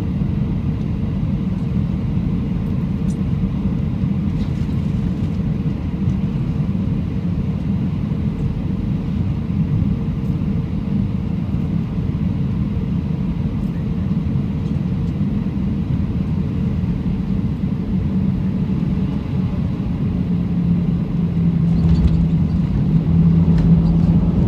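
Cabin noise of an Airbus A320-211 on final approach: a steady low rumble of the CFM56 engines and the airflow. About 22 seconds in the aircraft touches down and the rumble grows louder as it rolls out on the runway.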